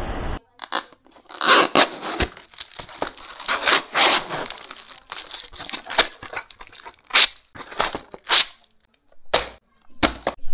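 Paper wrapping being torn and crumpled off a cardboard box, in a run of irregular rips and rustles with short pauses.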